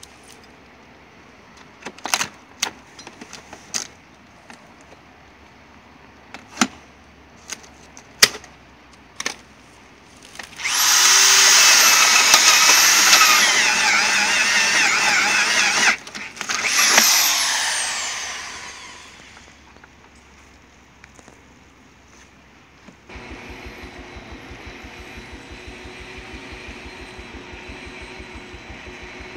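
A power drill with a hole saw boring through wood shingle siding to open an access hole for blowing dense-pack cellulose into the wall: a loud high whine in two runs, the second winding down. Before it come a dozen or so sharp taps and clicks as a pry bar works at the shingles, and near the end a steady machine hum with a fast low pulse sets in.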